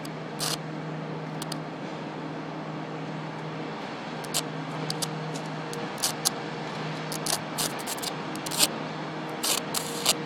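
Radio-frequency arc drawn with a screwdriver across the detuning-network terminal of a cell tower, fed by energy picked up from the neighbouring AM 1130 broadcast array: a steady buzz with irregular sharp crackles and snaps, which come thicker near the end.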